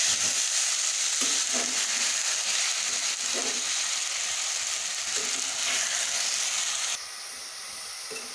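Fresh dill greens sizzling in hot oil in a metal pot while being stirred and turned with a metal spatula. The sizzle steps down suddenly, about seven seconds in, to a quieter level.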